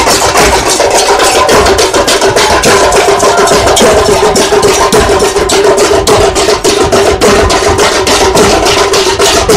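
Several drums beaten with sticks in a loud, fast, steady beat of about five strokes a second: a rope-laced barrel drum and large round drums played together.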